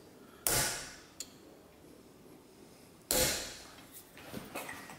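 Two hammer strikes on a center punch, about two and a half seconds apart, marking the centre points of cut copper petal discs; each strike rings briefly, with a few light metal clicks in between.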